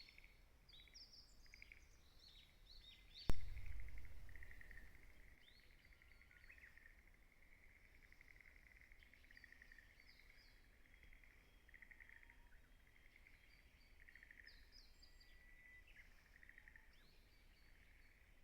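Small birds chirping and trilling in the open, faint and ongoing. About three seconds in, a single sudden knock with a brief low rumble after it.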